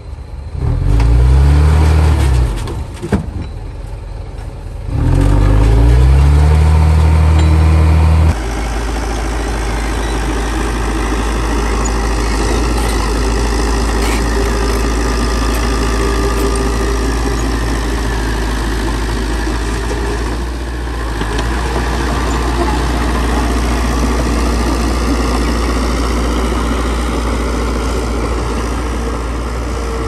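Heavy diesel engine of earthmoving machinery revving up twice in the first few seconds, its pitch rising each time. About eight seconds in the sound changes abruptly, and from then on it runs steadily.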